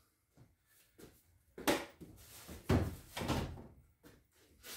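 A series of knocks and thuds as a kayak paddle is pulled from a garage rack and handled, its shaft bumping against the rack and the kayak. The loudest knock comes a little under three seconds in.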